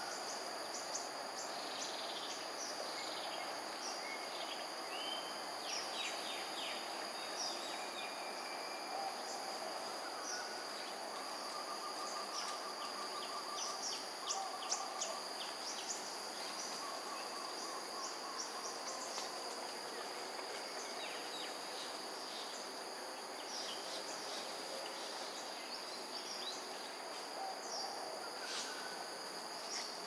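Steady high-pitched drone of insects, with many short high chirps scattered through it and a fast trill a little over a third of the way in.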